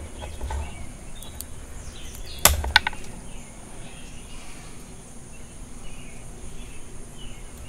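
Hand pruning shears snipping twice, two sharp clicks close together about two and a half seconds in, cutting back a dead stub on a small mulberry. A few fainter clicks of the blades come earlier.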